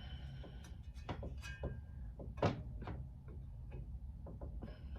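Light clicks and taps of metal parts being handled as a blower wheel is worked onto a heater fan motor's shaft, with one louder knock about halfway through.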